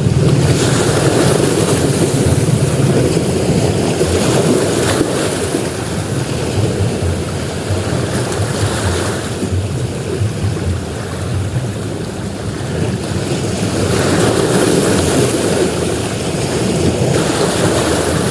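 Sea waves breaking and washing up a beach: a steady rush of surf that swells louder twice, once just after the start and again in the last few seconds.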